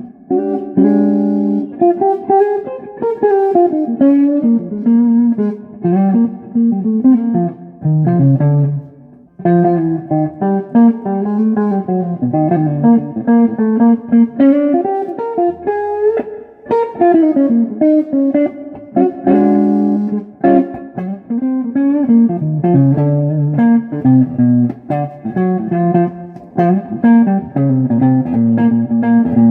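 Electric guitar played through a 1959 Magnatone 260A 35-watt valve amp, a continuous lead line whose notes slide and bend, with the amp's pitch vibrato wavering them.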